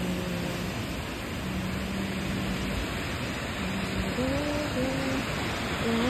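Ocean surf breaking and churning against rocks, a steady rushing wash of white water. Over it a soft, slow melody of long held notes, which slides between pitches in the second half.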